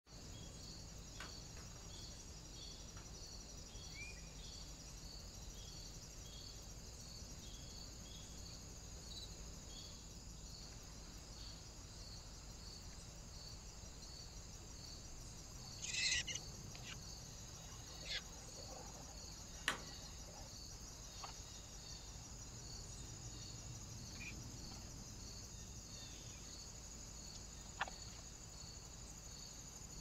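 Steady insect chirping, crickets, with a regular pulsing chirp at a little under two a second. About halfway through comes a short harsh burst, and near the end a few sharp clicks.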